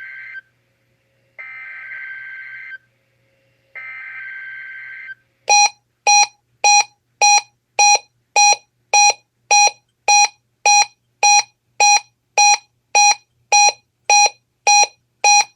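NOAA Weather Radio SAME alert header: raspy two-tone digital data bursts, each about a second long with a second's gap, sent three times for a Required Weekly Test. The first burst is already under way. From about five seconds in comes an even electronic beeping, about one and a half to two beeps a second, typical of a weather radio receiver's alert.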